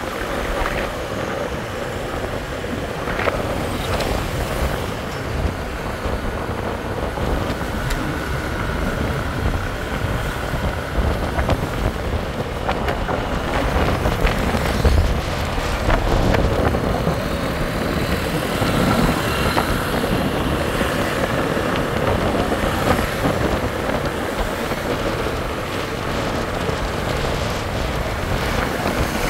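Steady street traffic noise with motor vehicles passing, mixed with wind buffeting the microphone.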